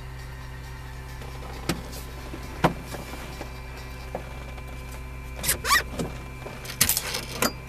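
Robinson R44 helicopter's six-cylinder Lycoming piston engine idling steadily just after start, rotor clutch not yet engaged, with a few sharp clicks.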